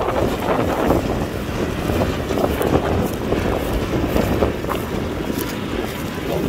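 Kubota tractor's diesel engine running steadily while plowing, with wind noise on the microphone.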